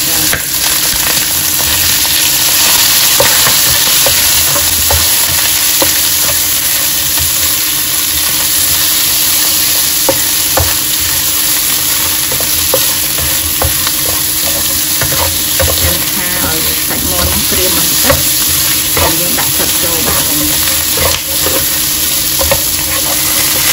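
Chicken pieces and minced garlic sizzling in hot oil in a nonstick wok, stirred and scraped with a spatula, with many scattered clicks of the spatula against the pan.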